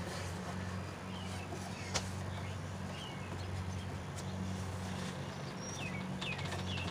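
A steady low hum with faint, short bird chirps scattered through it, mostly towards the end. About two seconds in, a single sharp knock, a shoe striking the wooden deck railing being climbed.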